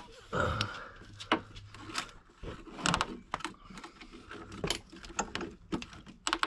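A large plastic zip tie being fed around a steel ATV frame and pulled through its head by hand, clicking in short irregular runs mixed with handling rattles.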